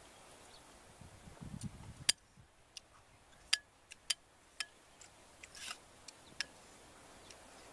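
A metal spoon clinking and scraping against a bowl of soup: a string of short, sharp clicks, about eight of them over some four seconds, after a little soft chewing near the start.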